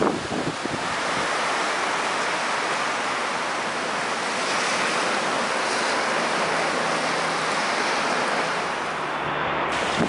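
Strong storm wind rushing steadily through the dense foliage of a large macrocarpa tree, a constant loud rush of wind in the branches.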